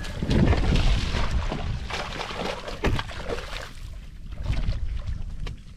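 Wind buffeting the microphone over water sloshing, loudest in the first second, with a single knock about three seconds in.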